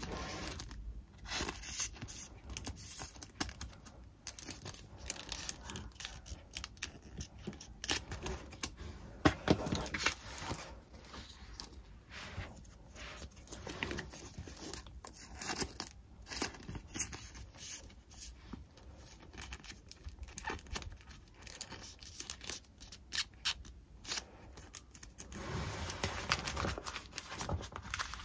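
Paper and plastic being cut, torn and handled close up while preparing stickers for the shop: a run of sharp snips, tears and crinkles, with a longer stretch of rustling near the end.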